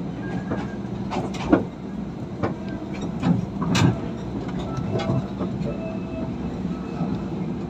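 Philippine National Railways diesel multiple unit 8103 running along the line: a steady low hum from the moving train with irregular clanks and knocks, the loudest a little under four seconds in.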